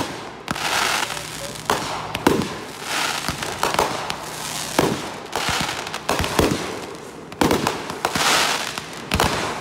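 Aerial fireworks going off one after another: a string of sharp bangs roughly a second apart as the shells burst, with crackling and hissing between them.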